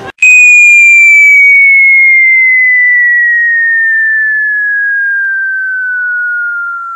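A falling-whistle sound effect: one loud, pure whistling tone that cuts in suddenly and slides slowly and steadily down in pitch, from high to middle.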